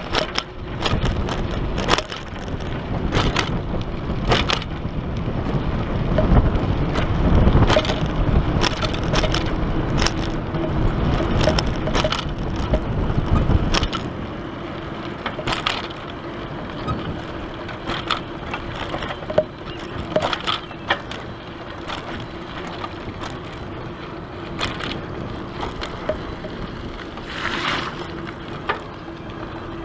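Bicycle rolling along a paved path, heard from a handlebar-mounted camera: a steady rolling noise with wind buffeting the microphone, and frequent clicks and rattles from the bike and its front basket over bumps. The deep wind rumble is heavy for the first half and eases about halfway through.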